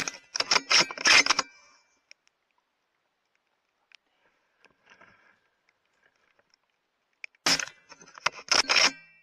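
Two quick runs of sharp metallic clicks and clacks from handling a bolt-action .308 rifle, each about a second and a half long, with faint rustling in the pause between.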